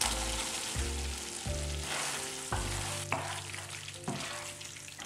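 Creamy pasta sauce sizzling in a nonstick frying pan as cooked penne is tipped in and stirred with a wooden spoon, with a few short knocks and scrapes of the spoon against the pan.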